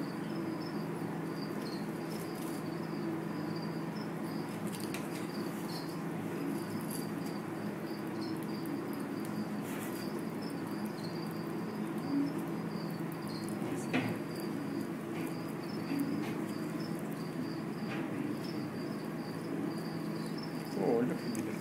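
Continuous high, even-pitched chirping, like crickets, over a steady low hum, with a few faint knocks.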